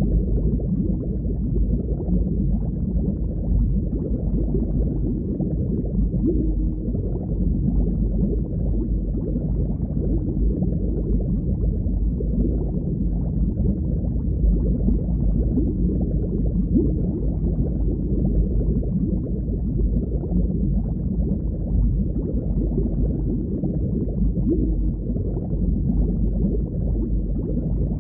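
Underwater ambience: a steady, muffled low rush of moving water, all deep in pitch, with no distinct events.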